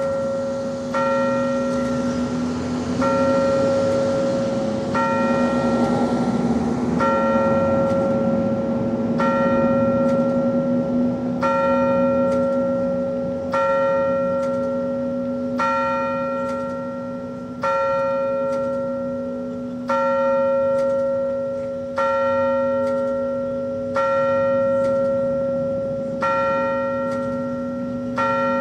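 A single large bell tolling, struck about once every two seconds, each stroke ringing on into the next over a steady low hum.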